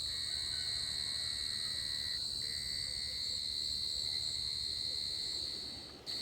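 Steady, high-pitched insect drone from crickets, unchanging throughout and cutting off abruptly near the end.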